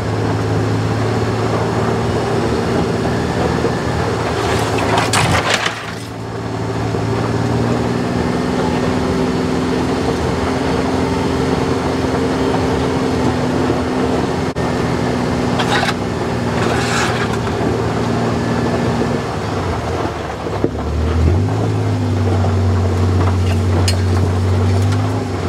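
Kawasaki Mule Pro FXT side-by-side's three-cylinder engine running as it drives along a dirt trail. The engine note shifts a few times, about six seconds in and again near twenty-one seconds. There are a few short bursts of noise, about five seconds in and around sixteen to seventeen seconds.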